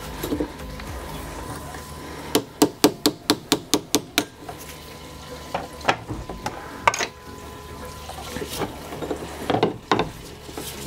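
Hand tools working on a dirt bike rear shock held in a bench vise: a quick run of about nine sharp taps about two seconds in, then scattered knocks and clunks as the shock is unclamped and stood upright in the vise.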